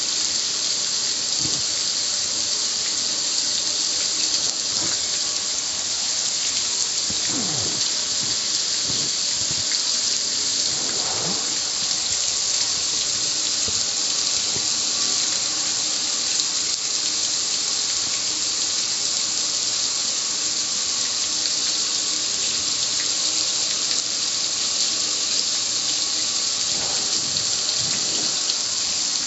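Water spraying steadily from a garden hose nozzle onto the lid of a black Char-Broil gas grill, an even hiss with splashing as it runs off.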